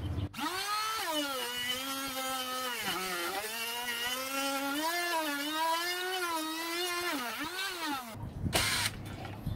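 Electric router in a plunge jig boring into a hardwood paddle handle to hollow it out: a steady motor whine that wavers and dips in pitch as the bit cuts, stopping about eight seconds in.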